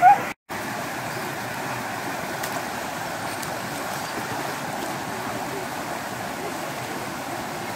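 A blue heeler's brief high whine right at the start. Then a small creek waterfall runs over a rock ledge in a steady, even rush of water.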